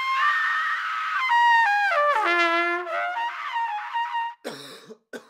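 Brass music on a trumpet-like horn: a held high note, then a run of notes stepping downward to a long low note, followed by more short notes. A brief rushing noise breaks in near the end.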